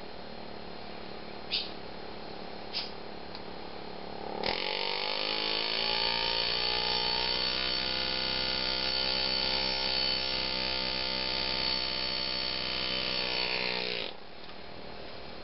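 Lindsay Classic air engraver's handpiece buzzing steadily as it cuts into the rifle's soft 8620 steel action. It starts about four seconds in, rising in pitch as it comes up to speed, then holds steady and cuts off suddenly near the end. Two light taps come before it.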